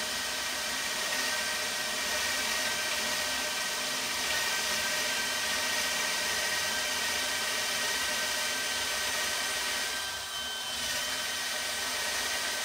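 DeWalt DCD999 cordless hammer drill running steadily, boring a 40 mm Forstner bit into a thick wooden beam: a continuous motor whine and whir that briefly eases about ten seconds in. The drill shows no strain on this bit.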